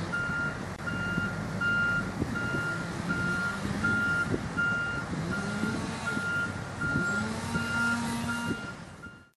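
Backup alarm on military heavy equipment beeping steadily, about two beeps a second, over a diesel engine running and revving up and down a few times in the second half. The sound fades out near the end.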